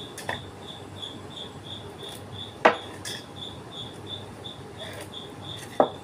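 Two sharp knocks about three seconds apart, from timber and tools being handled on a wooden workbench during hand joinery, over a cricket chirping steadily at about three pulses a second.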